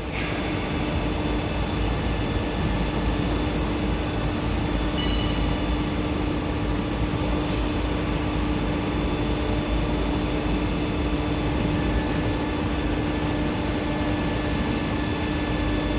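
CNC tube bending machine running its homing cycle: a steady machine hum with a constant tone, its axes driving back to the home position. The tone drops out just before the end.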